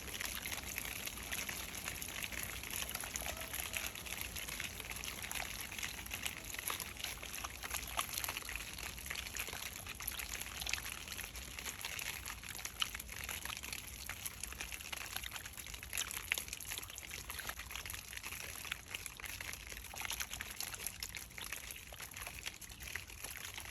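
Water trickling and pouring steadily, with scattered small drips and clicks.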